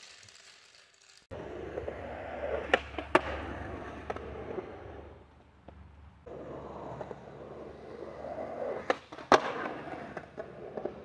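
Small hard wheels rolling over concrete with a steady rumble, clacking sharply twice over the joints between slabs. The rolling breaks off briefly about halfway, then starts again with another pair of clacks.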